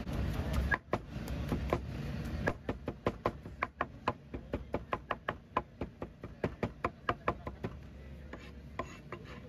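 Steel meat cleaver chopping braised pork carnitas on a plastic cutting board. It makes a quick run of sharp knocks, about five a second, that thins out to scattered chops near the end. This follows about a second of market crowd noise.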